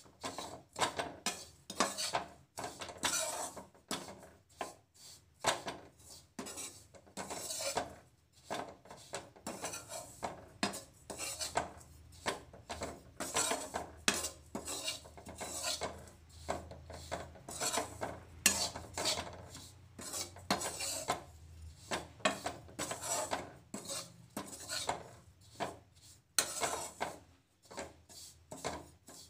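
Slotted steel spatula scraping and stirring bread crumbs against a steel kadhai, with repeated, irregular scraping strokes as the crumbs are lightly roasted in ghee.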